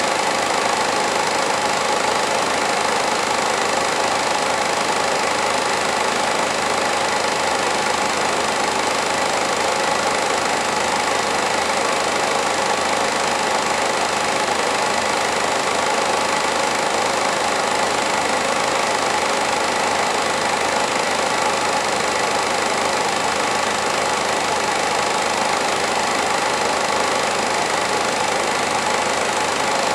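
Home-movie film projector running steadily: an even mechanical motor and film-transport sound that holds the same throughout.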